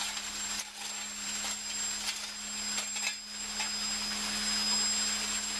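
Ready-mix concrete truck running while wet concrete pours down its metal chute: a steady noisy rush with a constant hum, and a few brief scrapes and knocks.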